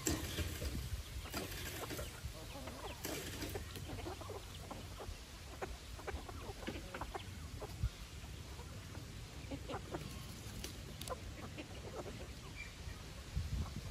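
Chickens clucking off and on while foraging, with scattered short taps and calls.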